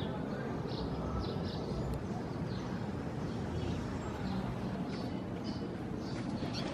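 Birds chirping in short, repeated calls over a steady low background rumble.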